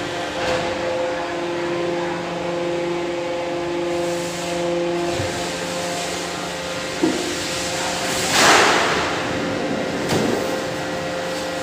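Hydraulic embossing press's power unit running with a steady multi-tone hum while the ram lifts; one tone stops about five seconds in as the stroke ends. About eight and a half seconds in, a loud scraping rush, and a smaller one near ten seconds, as the large pressed steel sheet is dragged off the press bed.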